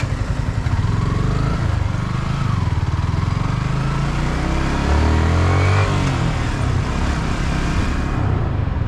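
Yamaha R15 V3's single-cylinder engine running while the motorcycle is ridden, with an even rush of wind and road noise. Its note rises and falls around the middle.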